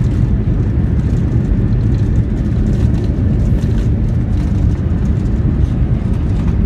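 Airliner cabin noise during the landing roll on the runway: a loud, steady low rumble from the engines, airflow and tyres heard from inside the cabin.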